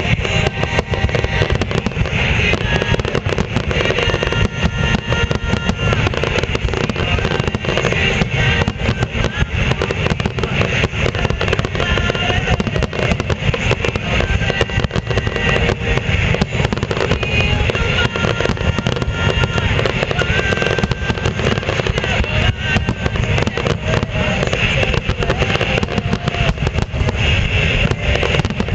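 Dense fireworks barrage: many aerial shells bursting in quick succession, a steady, unbroken run of booms and crackling, with music playing along underneath.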